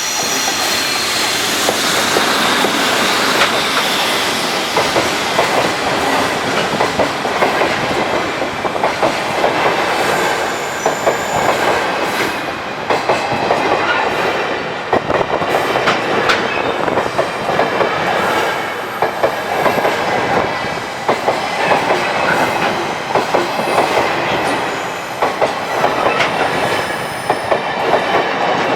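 Freight train hauled by a JR Freight EF65 electric locomotive going past, its wheels clattering over the rail joints in a long run of rapid clicks.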